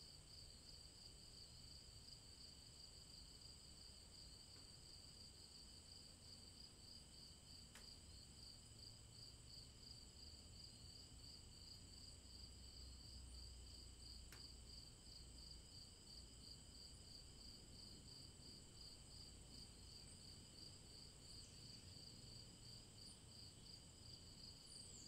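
Faint chorus of night insects: several steady high trills layered together, one of them pulsing quickly.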